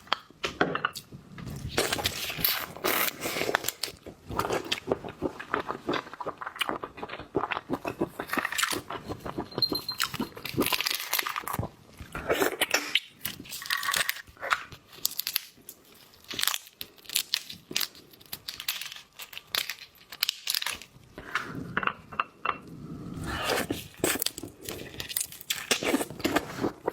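Close-up eating sounds of seafood: shells cracking and tearing, with crunching and chewing, in many quick, irregular clicks and crackles.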